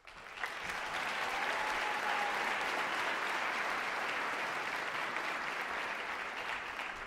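Audience applauding, swelling up in the first second and fading away near the end.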